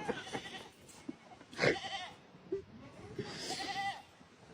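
Goat bleating, two calls about two seconds apart, the second one longer.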